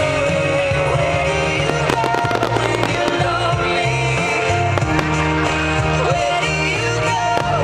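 Loud rock-style music with singing plays throughout. A cluster of firework bangs and crackles cuts through it about two seconds in.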